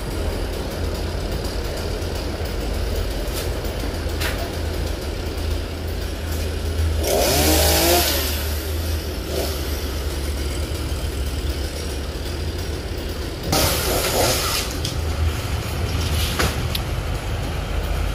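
A chainsaw idling steadily, revved up twice, about seven seconds in and again near fourteen seconds, its pitch rising and falling the first time.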